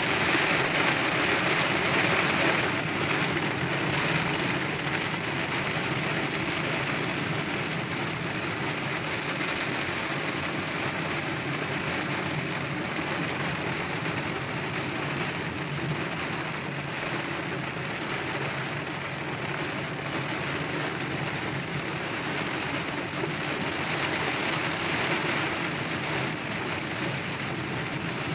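Heavy rain drumming on a car's windshield and body, heard from inside the moving car over steady road and engine noise.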